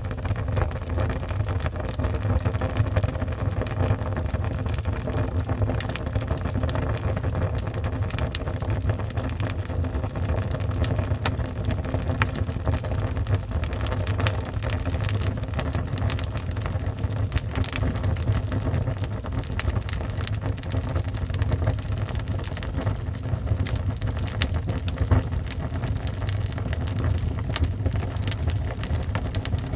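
Wood fire burning in a fireplace: a steady low roar with frequent small crackles and pops throughout.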